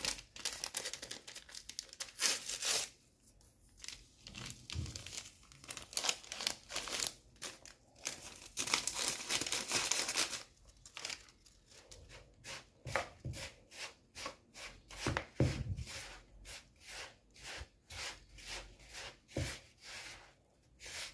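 Hands rubbing and tossing oil-moistened semolina in a plastic bowl, a dry gritty rustle. About halfway through it settles into even strokes, about two a second.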